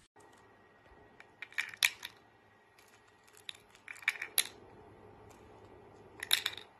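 Hard plastic rings clicking and clattering against the acrylic pegs and base of a ring-stacking toy as a little corella places them, in three short bursts of clicks.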